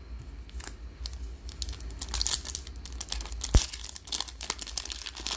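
Foil wrapper of a Topps Holiday baseball card pack being torn open and crinkled by hand: a dense run of crackles with one sharp snap about midway.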